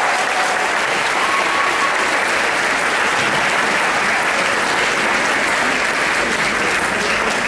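Crowd applauding steadily, a dense continuous patter of many hands clapping.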